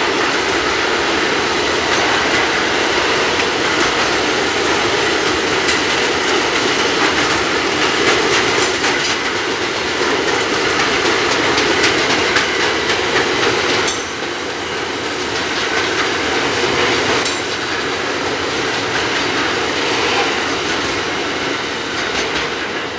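Intermodal freight train of pocket wagons carrying lorry semi-trailers rolling past slowly and close: a steady heavy rumble of wheels on rail, with a few sharp clicks at irregular intervals as wheels cross rail joints. Near the end the last wagon passes and the noise starts to fade.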